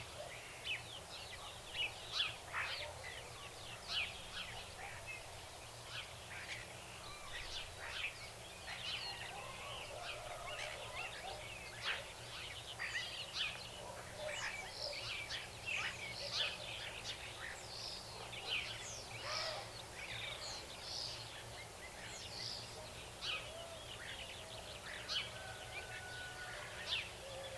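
Nature ambience of many birds chirping and calling over one another, a dense, unbroken stream of short calls over a faint steady background hiss.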